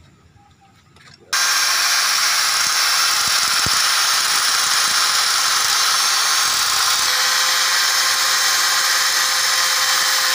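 Handheld electric angle grinder switched on about a second in, then grinding steadily on a metal motorcycle disc-brake caliper bracket to trim it for clearance.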